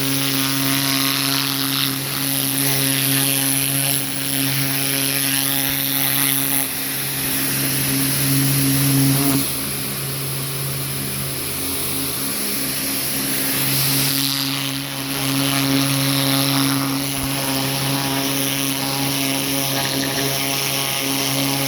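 Small pressure washer running with a steady motor hum, its turbo-tip nozzle hissing as it sprays water onto a turkey skin's wings. The hum and spray shift briefly a couple of times.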